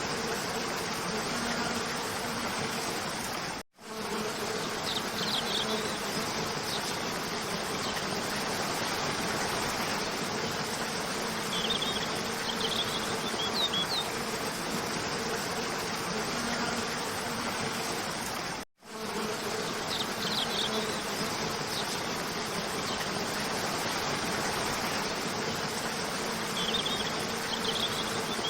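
Waterfall water rushing in a steady, even noise, with faint, short high chirps now and then. The sound cuts out abruptly for a split second twice, about 4 and 19 seconds in, where the looped recording restarts.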